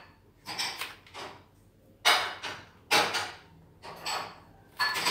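A series of about five short scraping strokes against a board, each lasting about half a second, with short gaps between them.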